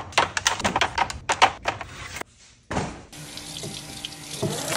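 Eggs clicking one after another as they are set into a plastic egg tray. After a short pause, a kitchen tap runs into a sink from about three seconds in.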